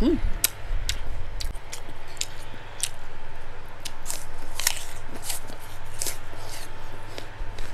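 Raw apple slice being bitten and chewed close to the microphone: a string of crisp, irregular crunches.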